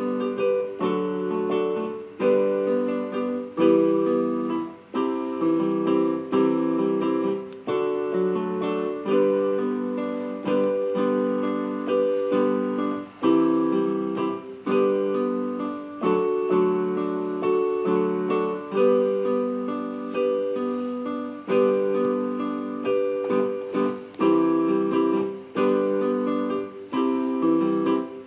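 Background piano music: chords struck and left to ring, changing about once a second in a steady rhythm.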